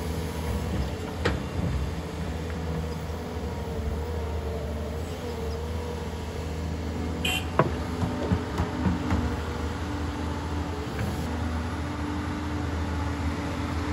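Doosan excavator's diesel engine running steadily, with a few sharp knocks and clanks about a second in and again several times a little past the middle.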